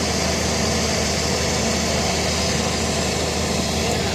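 An engine idling steadily, with no change in speed.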